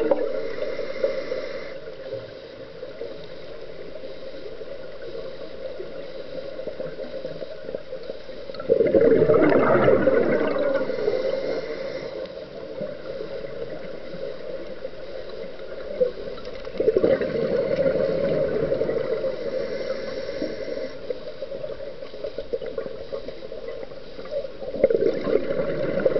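Scuba diver's exhaled breath bubbling out of a regulator, in three gurgling bursts several seconds apart, each lasting a couple of seconds. Between the breaths there is a fainter steady underwater hiss.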